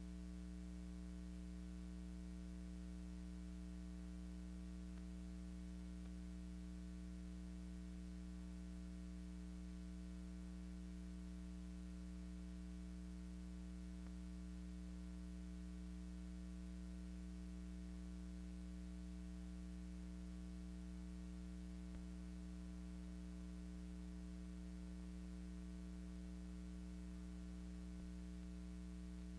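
Steady electrical mains hum with many overtones over a light hiss, with no other sound, from the soundtrack of an old film print.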